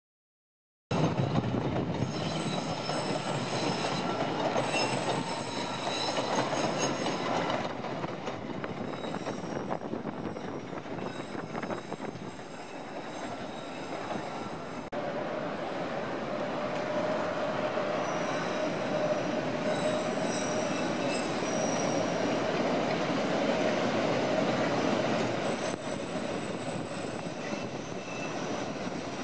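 Chicago 'L' elevated train running along the elevated tracks, steel wheels squealing on the rails in thin high tones over a steady running noise. It cuts in suddenly about a second in.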